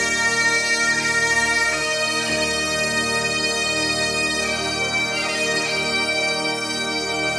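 Bagpipe music: a steady, unbroken drone held under a slow-moving melody.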